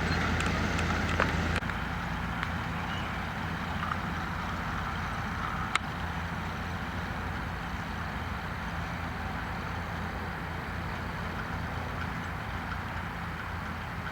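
MB-Trac tractor's diesel engine running steadily at a constant pitch, dropping a little in level about a second and a half in. A single sharp click comes near the middle.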